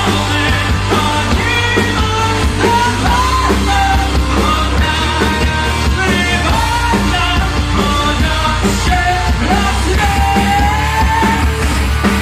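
Live heavy metal band playing with full drums, bass and guitars while the vocalist sings a wavering melody line over them, holding one long note near the end.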